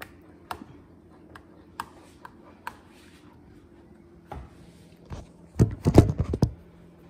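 Wooden spoon stirring thick pudding in a small metal saucepan, with scattered light clicks of the spoon against the pan, over a faint steady hum. Near the end, a burst of loud thumps and rubbing as the camera is picked up and handled.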